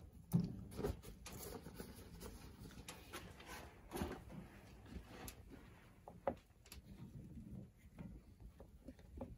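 Red potatoes and then carrots being dropped and laid into a cast iron Dutch oven of simmering broth: a few sharp knocks and plops, the loudest about half a second in.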